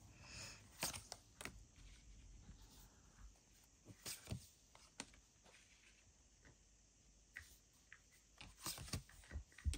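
Faint scattered clicks and taps of tarot cards being handled and laid down on a table, with a brief soft rustle near the start.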